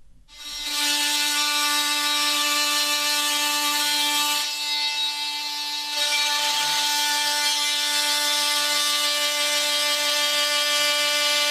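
Bosch GOP 250 CE 250-watt oscillating multi-tool starting up and running under load on a workpiece, a steady buzzing hum over a bright rasping hiss. The sound dips briefly about four and a half seconds in, and at six seconds the hum settles on a slightly different pitch.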